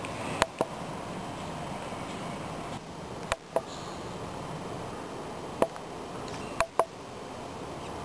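Steady background hiss with several sharp clicks, most of them in close pairs.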